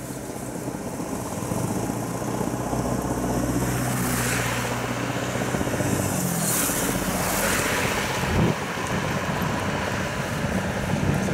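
Vehicle engine running with a steady low hum, building up in level over the first few seconds. A brief thump comes about eight seconds in.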